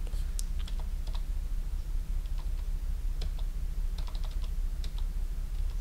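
Scattered keystrokes on a computer keyboard, single taps and short clusters, over a steady low hum.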